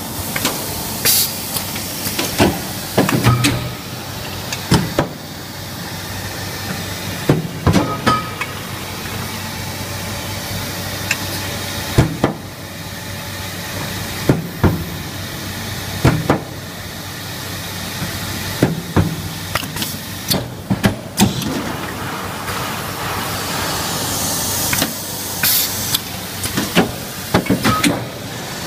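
Automated sheet-metal production line for chest-freezer side panels at work: irregular sharp clanks and knocks from the machine over a steady factory hum, with short bursts of hissing air from its pneumatics, the longest near the end.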